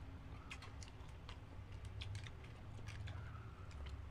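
Close-miked eating: chewing, wet mouth clicks and lip smacks from people eating grilled isaw and betamax, as an irregular run of short clicks.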